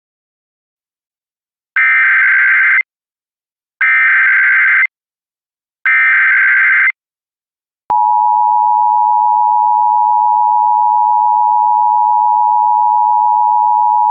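Emergency Alert System tones: the SAME digital header, three one-second bursts of data tones about two seconds apart, then the steady two-tone EAS attention signal starting about eight seconds in. This sequence opens an emergency alert broadcast.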